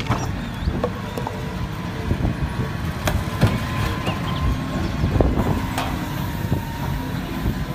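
Large forklift's engine running as it drives a load into a shipping container, with a faint steady whine and a few sharp knocks.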